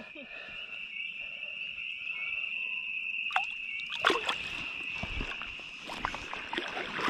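Shallow lake water sloshing and splashing around hands holding a bowfin as it is revived and let go, with two sharper splashes about three and four seconds in. A steady high-pitched drone runs underneath throughout.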